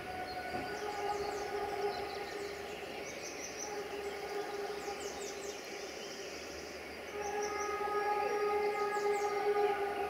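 Distant multi-tone air horn of the CFR class 65 GM diesel locomotive 65-1300-6, sounding a chord in two long blasts, the second, starting about seven seconds in, louder. Birds chirp throughout.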